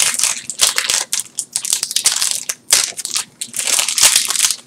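A foil Yu-Gi-Oh booster pack wrapper crinkling and crackling in the hands as it is worked open, in quick, uneven bursts.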